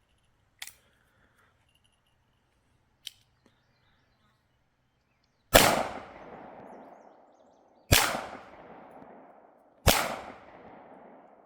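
Three shots from a Walther P38 9mm pistol, a little over two seconds apart, each followed by a ringing tail. Two faint sharp ticks come earlier, in the first few seconds.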